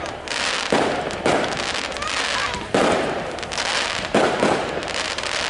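Aerial fireworks going off in quick succession: four sharp bangs over a continuous crackle and hiss of burning stars.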